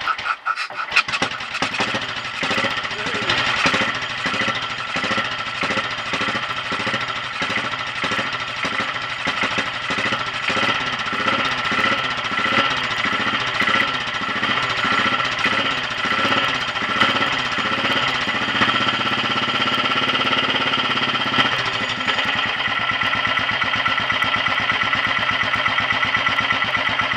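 Royal Enfield 500 Bullet single-cylinder engine starting from cold on choke for its first run after a high-compression top-end rebuild, catching at once. For its first stretch the revs rise and fall over and over as the throttle is blipped, then it runs at a steady fast speed for a few seconds and, from about two-thirds through, settles to a steady, even idle.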